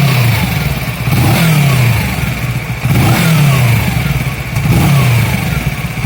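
The 649 cc parallel-twin engine of a 2012 Kawasaki ER-6 motorcycle being blipped repeatedly at a standstill, about five short revs. After each rev the engine note falls back toward idle.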